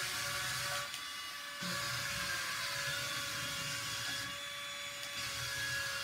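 Suction fan of a remote-control wall-climbing toy car whirring with a steady high whine and hiss, the hiss thinning out briefly twice as the car drives on the wall.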